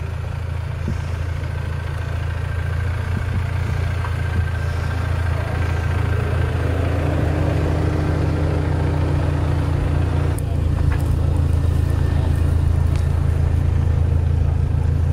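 2024 Toyota Land Cruiser's 2.4-litre turbo four-cylinder hybrid powertrain running at low speed in four-wheel-drive low range as the SUV crawls up a dirt trail, a steady low rumble growing louder as it approaches and passes close by.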